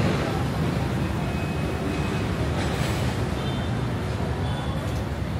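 Steady street traffic noise from passing motor vehicles, a low rumble under an even hiss.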